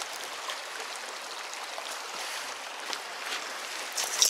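Shallow canyon creek running over rocks in a steady rush of water, with a few short sharp knocks or splashes near the end.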